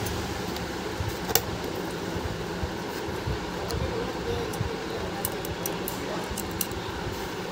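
A few sharp clicks and taps as a new carbon brush and its brass spring clip are handled and fitted into a mixer grinder motor's brush holder, one about a second and a half in and a cluster near the end, over a steady background hum.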